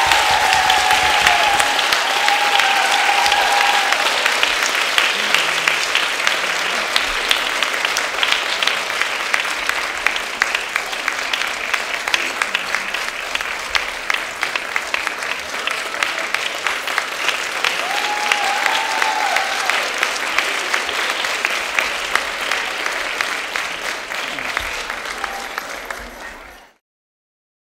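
Audience applauding, with a few cheering voices calling out, near the start and again later on. The clapping slowly thins, then cuts off suddenly just before the end.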